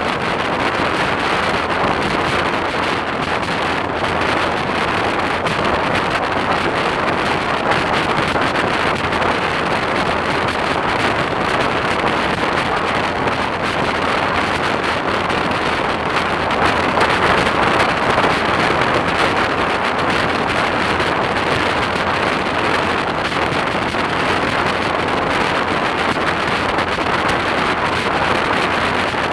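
Steady rush of wind on the microphone of a motorcycle-mounted camera at road speed, mixed with motorcycle and tyre noise, swelling slightly about halfway through.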